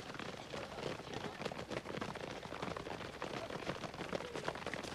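Footsteps of a crowd of children running on a dirt track, a dense, steady patter of many feet.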